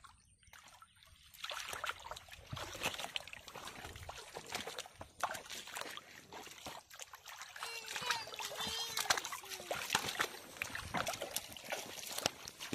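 Hands splashing and sloshing through shallow, muddy pond water, with water dripping and trickling off them, in an irregular run of small splashes that starts about a second in.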